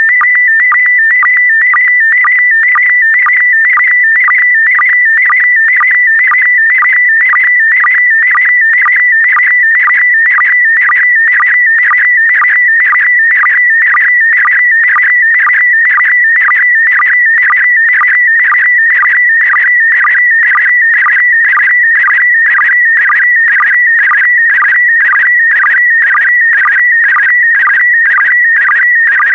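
Slow-scan television signal in PD120 mode: a continuous electronic warbling tone whose pitch shifts as it carries the picture line by line. It is broken by a short, lower sync beep about twice a second.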